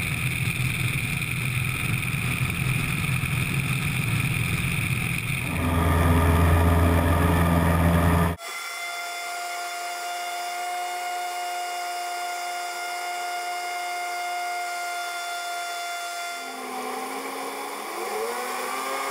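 Piper Super Cub's Lycoming flat-four engine and propeller at full takeoff power, with rumble from the wheels on the runway, growing louder about five seconds in. About eight seconds in the sound cuts abruptly to a thinner, steady engine whine in the climb, with a rising tone near the end.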